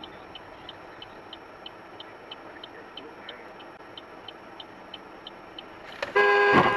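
Steady low car noise heard from inside a moving car, with light ticking about three times a second. About six seconds in, a car horn sounds loudly for about a second as the car closes right up on a van.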